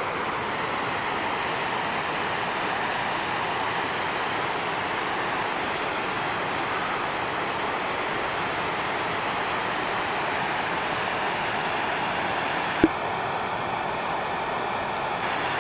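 Oceana Falls, a waterfall, rushing with a steady, even roar of falling water. A single sharp click cuts through about thirteen seconds in.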